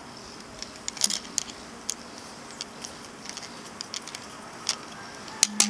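Light scattered clicks and taps of a flat metal key tool working against the top cap of a Spyder paintball marker regulator as it is unscrewed, with two sharper clicks near the end. A low steady hum starts just before the end.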